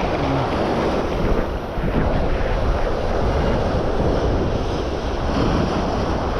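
Wind buffeting the microphone over the steady wash of sea surf against the jetty rocks.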